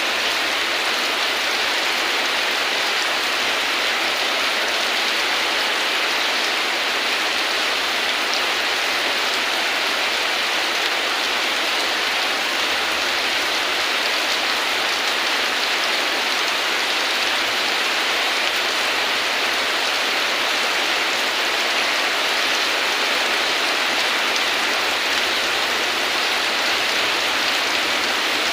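Steady rain falling: an even, unbroken hiss of rainfall with no thunder.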